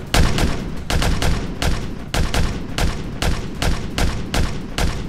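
Paintball markers firing in a rapid, uneven volley of sharp shots, about three or four a second.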